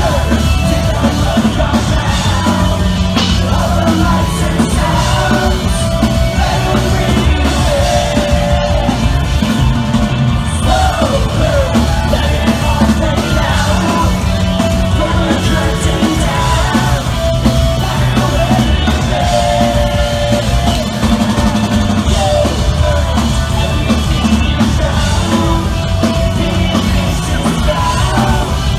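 Live rock band playing at full volume, with electric guitars, a drum kit and singing.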